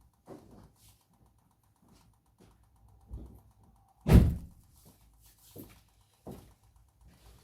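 A few separate knocks and thuds, the loudest a heavy thunk about four seconds in.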